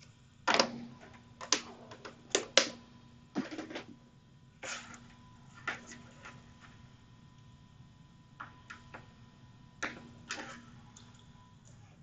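Scattered sharp clicks and taps of the iPhone 7 and its parts being handled on a repair bench while it is readied for a boot test, the densest in the first few seconds, over a faint steady hum.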